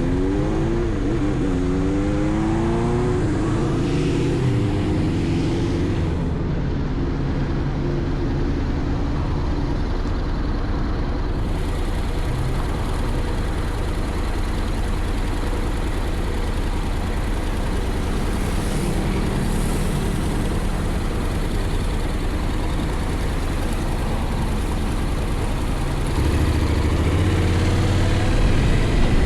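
Honda X-ADV's parallel-twin engine running on the move, its pitch rising and falling over the first few seconds as the speed changes, then holding fairly steady. Near the end it gets louder and climbs in pitch as the bike accelerates, with wind rush on the microphone underneath.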